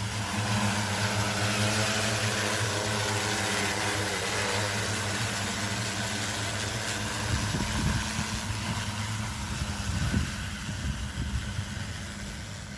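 Agricultural spraying drone's motors and propellers running with a steady buzzing drone, with a few low thumps in the second half.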